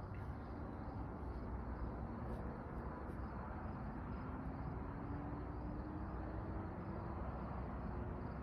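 Steady outdoor background noise with a faint low hum that slowly rises in pitch through the middle.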